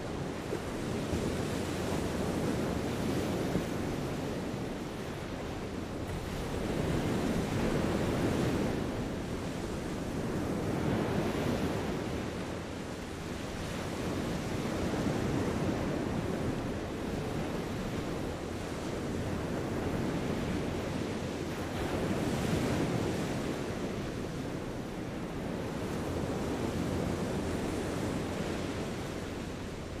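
Gentle sea waves washing onto a sandy beach, a steady surf wash that swells and eases every few seconds.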